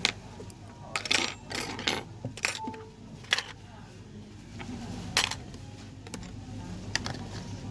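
A scatter of sharp metallic clicks and clinks, like small tools or parts being set down and handled on a hard workbench, bunched in the first few seconds with two more later, over a low steady hum.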